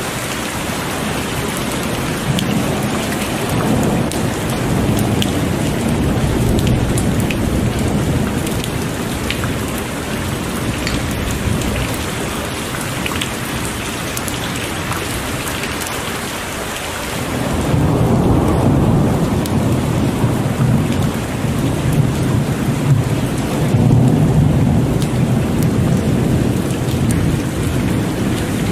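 Heavy rain falling steadily with a patter of drops, under low rolling thunder that swells louder about two-thirds of the way in and keeps rumbling.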